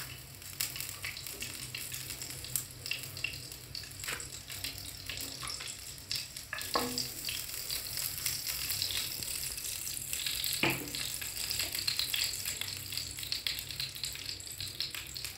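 Ghee melting and sizzling in a hot nonstick frying pan, a soft steady crackle with scattered sharp pops, over a steady low hum.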